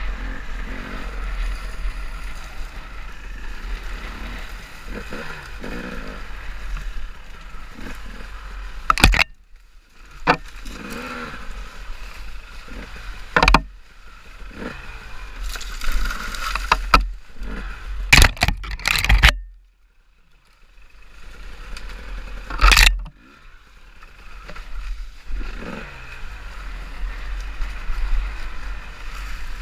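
Off-road motorcycle engine running while riding a trail, its pitch rising and falling with the throttle. Several sudden loud bursts of noise come through the middle, and the engine briefly drops low twice, about a third and two-thirds of the way in.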